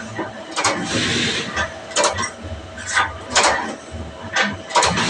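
Slotting machine running, with a scraping, clattering stroke roughly once a second over a steady hum.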